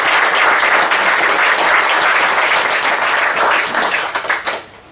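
Audience applauding, many hands clapping together, dying away about four and a half seconds in.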